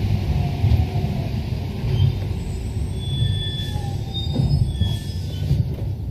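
Paris Metro Line 1 rubber-tyred train rumbling as it brakes to a stop at a station platform, with faint thin high squeals during the braking.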